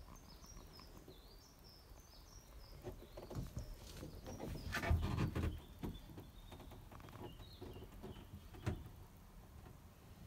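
A songbird singing outdoors in short, high chirping phrases, over a cluster of rustling and knocking handling noises that is loudest about five seconds in, with a single sharp click near the end.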